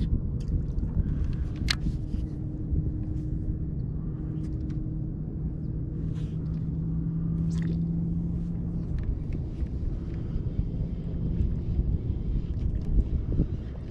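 A motor droning steadily at a low pitch over a low rumble, its hum fading out after about nine seconds, with a few faint clicks from a baitcasting reel being cast and cranked.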